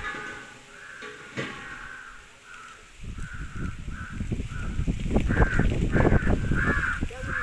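Crows cawing over and over, short calls about two a second, getting louder about five seconds in. Low rumbling noise rises underneath from about three seconds in.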